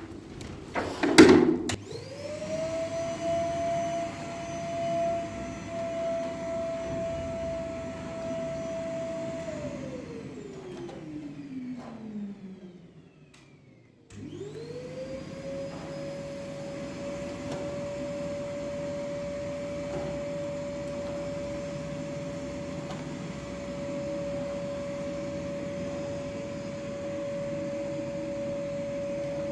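An electric motor appliance is switched on after a couple of clicks and runs with a steady whine. It is switched off and spins down with a falling pitch, then is switched on again about 14 seconds in and runs steadily.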